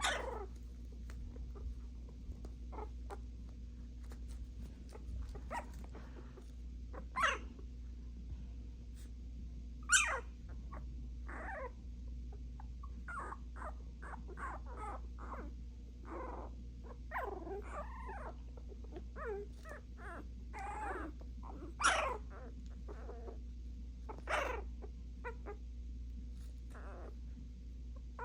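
Puppies barking at each other in short, scattered calls. A few sharp barks are much louder than the rest, and a busy run of wavering calls comes in the middle.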